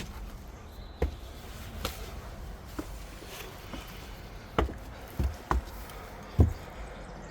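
Footsteps in the woods: irregular sharp cracks and thumps of twigs and brush snapping underfoot, about one every second, the loudest near the end.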